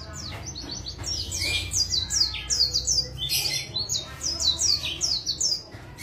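White-eye (pleci) singing a fast twittering song of quick down-slurred high notes. The song starts about a second in and stops shortly before the end.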